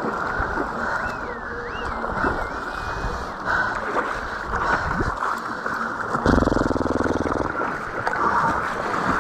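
Water splashing and sloshing as a hooked giant trevally thrashes at the surface in shallow water beside the wading angler, with waves lapping. A louder rush of water lasts about a second, a little past halfway through.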